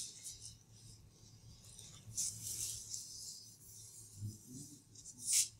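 A sponge rubbed across a chalkboard to erase it: soft scrubbing strokes, the longest about two seconds in and a short sharp one near the end.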